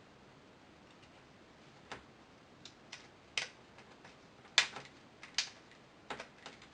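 Short, sharp clicks and taps from handling a smartphone during a screen repair: about nine of them, irregularly spaced, starting about two seconds in, with the loudest a little past the middle.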